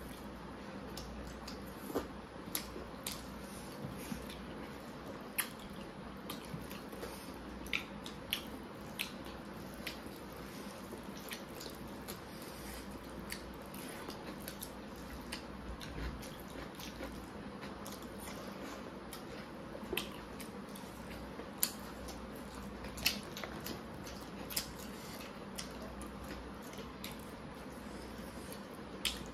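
Close-miked eating by hand: scattered wet smacks and clicks of chewing, and of fingers squishing rice and dal on the plates, over a low steady background noise.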